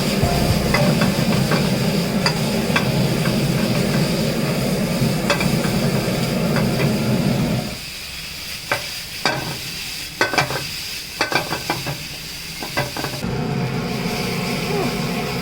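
Chilli chicken frying and being stirred in a pan: a steady sizzle with sharp clicks and knocks from the stirring. About eight seconds in the sizzle drops away, leaving a run of knocks for a few seconds, and it comes back near the end.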